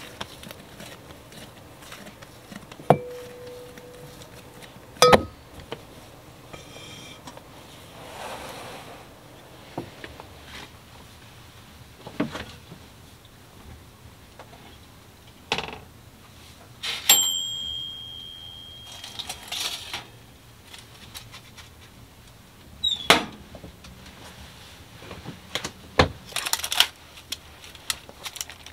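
Kitchenware being handled: scattered knocks and clinks of metal bowls, pans and utensils, several of them ringing briefly, with one clearer, longer ring about halfway through.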